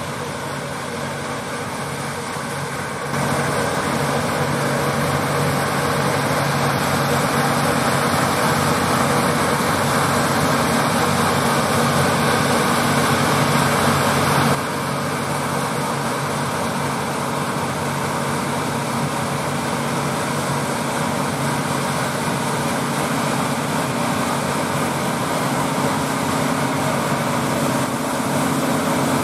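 John Deere 8R tractors' diesel engines running steadily under load, pulling KMC six-row peanut pickers whose machinery runs along with them. The sound steps louder about three seconds in and drops back about halfway through.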